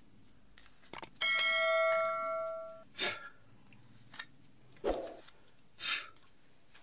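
A bell-like chime sound effect, a clean ringing tone that sounds about a second in and fades out over a second and a half, from a subscribe-button animation. After it come a few short scraping and rubbing sounds as the plastic earbuds case lid is handled.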